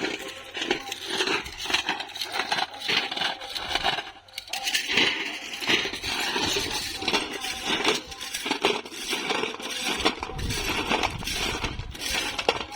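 Loose railway ballast stones clattering and crunching in many irregular short knocks.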